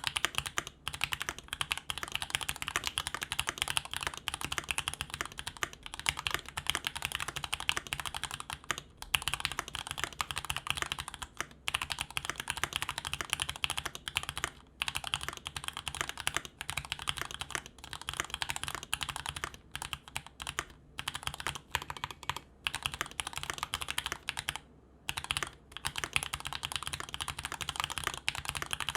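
E7-V1 SE mechanical keyboard with lubed Gateron Ink Yellow linear switches and GMK White on Black ABS keycaps, typed on quickly and continuously: a dense run of keystroke clacks with a few short pauses.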